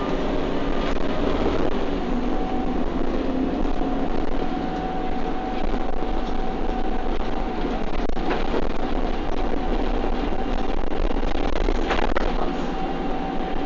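Bus interior noise while the bus runs at speed: steady engine and road noise under a constant whine, with a few brief rattles about a second in, around eight seconds and near twelve seconds.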